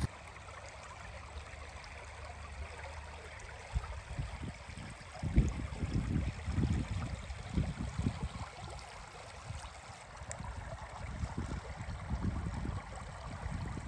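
Shallow creek water trickling over stones. Irregular low thumps come in about five seconds in.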